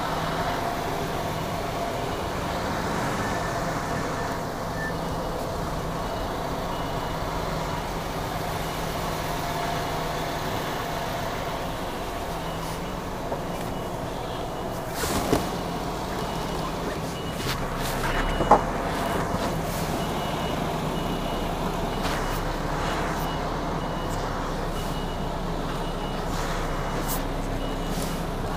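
Lorry's diesel engine running steadily while the truck reverses, its reversing alarm beeping over and over from about halfway through. Two brief, sharp louder sounds come a few seconds apart near the middle.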